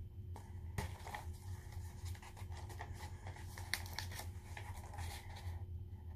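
Paper rustling and crinkling, with a run of small clicks for about five seconds as pages are handled, over a steady low hum.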